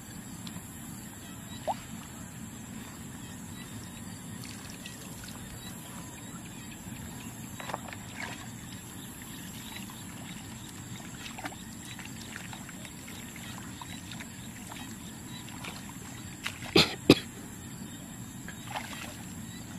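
Muddy ditch water splashing and sloshing as hands grope through the mud, over a steady trickle of running water. A few short splashes stand out, the loudest two close together near the end.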